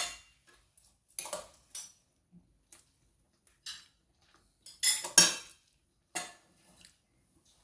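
Cutlery clinking and scraping against plates during a meal, in scattered short strokes with pauses between, the loudest around five seconds in.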